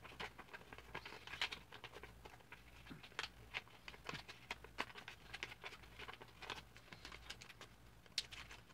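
Sheet of paper being folded and creased by hand into a paper airplane: faint, irregular crinkles and soft taps.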